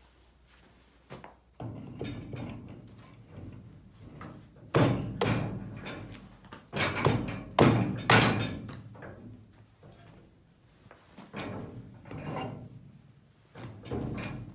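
Knocks and thuds of a flat-free tire on its rim being worked onto an old wagon's axle, in irregular bursts, the loudest about five to eight seconds in.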